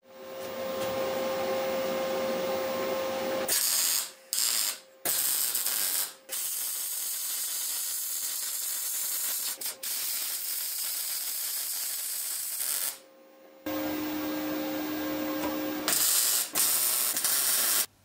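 Electric arc welding: a steady crackling, sizzling arc that is stopped and restarted several times with short pauses between runs.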